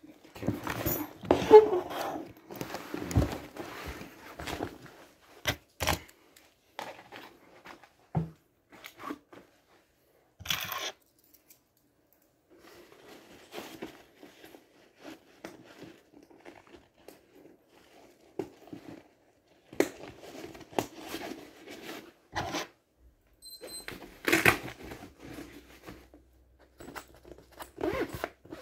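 Handling noise of gear being packed into a bag: irregular rustling with scattered clicks and knocks, busiest in the first few seconds and again in the last third.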